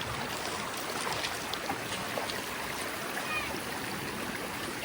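River water flowing steadily, a continuous rush of current over a shallow bed.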